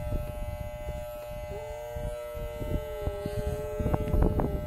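Wahl electric clippers buzzing steadily while shaving a cat's matted coat. About one and a half seconds in, the cat gives one long, low, slightly falling yowl of protest lasting about three seconds. A few sharp knocks come near the end.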